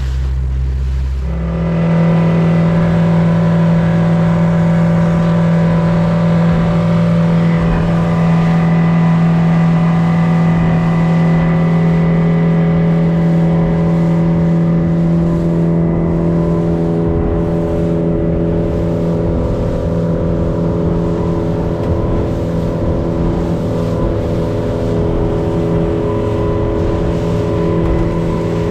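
A small boat's motor running under way. About a second and a half in the throttle opens and the pitch steps up, then the engine holds a steady cruising note.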